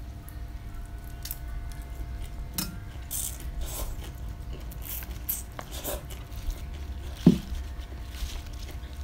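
Close-up eating sounds: crunching and chewing raw vegetables and rice noodles, scattered short crackles at irregular intervals over a steady low hum. About seven seconds in there is one brief, louder low sound.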